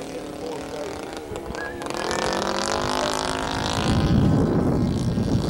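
Model plane's DLE 20 single-cylinder two-stroke gas engine running in flight overhead. Its pitch rises and it grows louder through the middle. A loud low rumble comes in about four seconds in.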